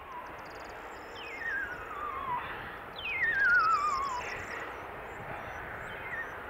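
Steady, distant rush of an Airbus A320's IAE V2500 jet engines. Over it come two falling, warbling whistles, about a second in and about three seconds in; the second is the louder.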